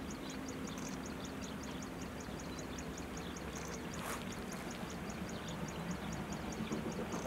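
Faint, steady low rumble of a distant steam train, with a small animal's rapid high ticking, about six ticks a second.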